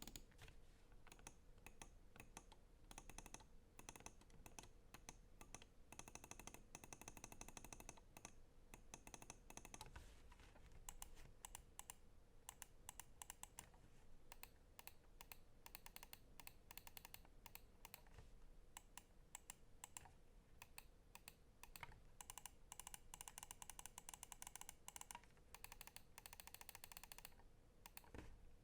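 Endorfy GEM Plus Wireless mouse buttons clicking, many quiet clicks in fast runs during the first third and again near the end, sparser and more spaced out in between.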